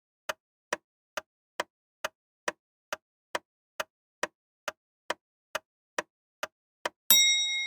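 Countdown timer sound effect: a clock ticking, about two ticks a second, then a bell-like ding about seven seconds in that rings on, marking time up.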